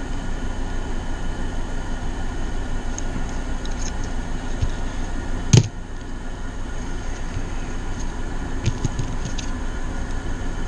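Steady hum of two room air conditioners running, with a few faint handling clicks and one sharp snap about halfway through.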